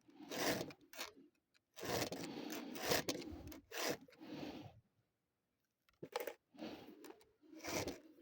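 Irregular scraping and rubbing strokes of varying length, separated by short silent gaps, with no engine running.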